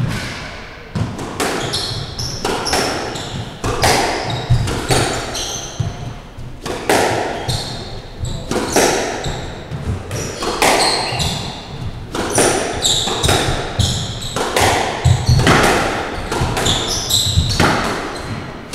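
Squash rally: the rubber squash ball cracking off rackets and the walls about once a second, mixed with shoes squeaking on the wooden court floor.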